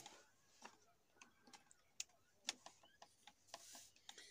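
Faint, irregular ticks and taps of a ballpoint pen on paper as it writes, with a short soft scratch of the pen near the end.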